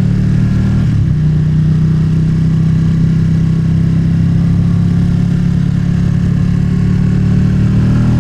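Motorcycle engine running at a steady, loud cruising note while riding, with a brief change in pitch about a second in.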